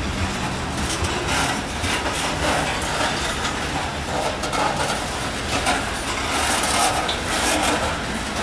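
Covered hopper cars of a slow BNSF grain train rolling past: a steady rumble of steel wheels on the rails with a few light clicks and knocks.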